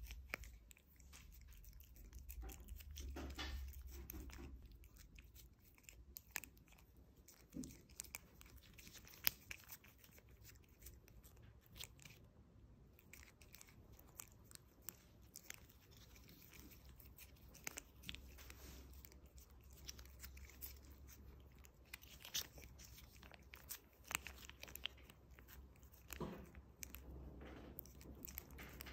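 Siamese cat licking creamy treat from a squeeze tube: faint, scattered wet licking and smacking clicks from its tongue and mouth.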